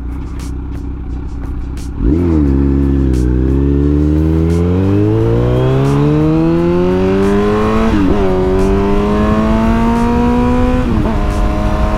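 Kawasaki Z900's inline-four engine pulling away under hard acceleration, with wind rush. After about two seconds at low revs, the throttle opens and the revs climb steadily. They drop at an upshift about eight seconds in, climb again, and drop at a second upshift near the end.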